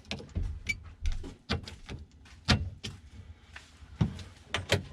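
Scattered sharp clicks and knocks, about eight over five seconds, from hands and tools working on a gated shifter while its side-to-side play is being adjusted.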